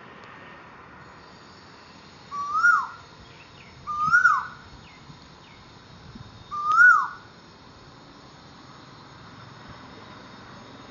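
Asian koel calling three times, each call a short note that slides up and then drops, with a steady insect drone behind.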